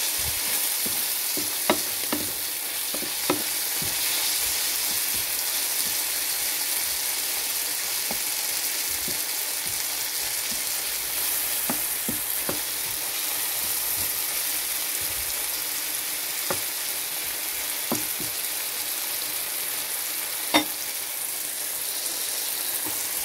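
Chopped onion, tomato and minced meat sizzling in hot oil in a frying pan while a wooden spatula stirs them, a steady hiss. Now and then the spatula taps sharply against the pan, the loudest tap about three-quarters of the way through.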